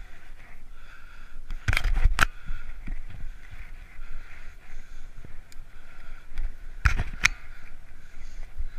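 Giant Escape 2 hybrid bicycle riding along a paved path: steady rolling noise with a low rumble. Brief clusters of sharp knocks come about two seconds in and again about seven seconds in.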